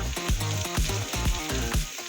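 Background music with a steady beat over food sizzling in a frying pan.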